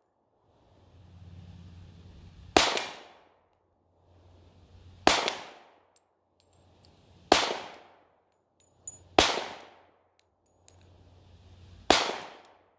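Five shots from a semi-automatic pistol fired at steel targets, spaced about two and a half seconds apart. Each is a sharp crack with a ringing tail that dies away, and a fainter crack comes just before the fourth shot.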